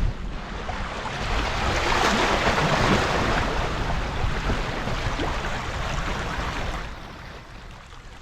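Shallow sea water washing in over mud and against shoreline rocks, swelling about two seconds in and easing off near the end, with wind buffeting the microphone.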